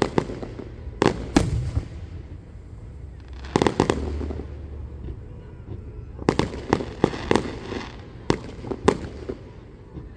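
Fireworks display: aerial shells bursting in sharp bangs. A few come near the start, a cluster about three and a half seconds in, and a quick run of bangs from about six to nine seconds.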